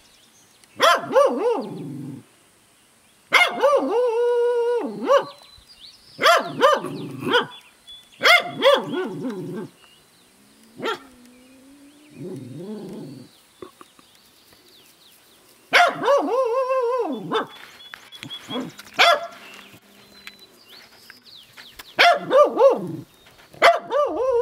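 Pembroke Welsh Corgi giving about eight drawn-out, howling barks, the breed's 'baroo', each a second or two long and many sliding down in pitch at the end.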